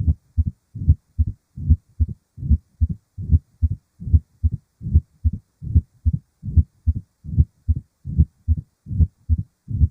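Human heart sounds heard through a stethoscope: a steady lub-dub rhythm of paired low thuds at about 70 beats a minute.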